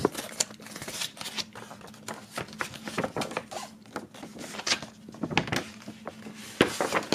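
Paper handling on a wooden tabletop: irregular clicks, taps and rustles as items are moved aside and a large folded paper poster is unfolded, with louder crackles of the paper near the end.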